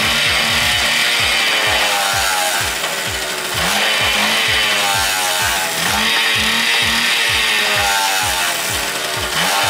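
1995 Yamaha YB-1's 50cc single-cylinder two-stroke engine running just after a kick start, its revs rising and falling several times as the throttle is blipped.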